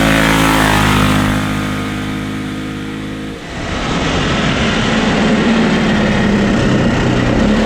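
Stage 2 Predator 420cc single-cylinder ATV engine running loud through a Mustang 5.0 muffler, held at a steady speed at first, then a short dip and a rougher, lower-pitched running sound after about three and a half seconds.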